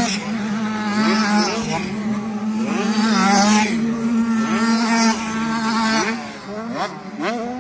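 Motocross bike engines racing past on the track, revving hard with the pitch climbing again and again as the rider shifts up through the gears, over a steadier engine tone underneath.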